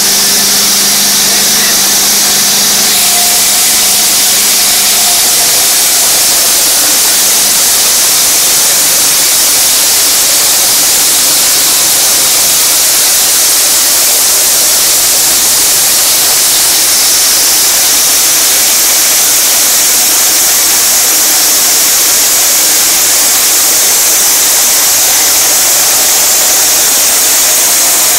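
Concrete saw cutting through concrete: a loud, steady noise.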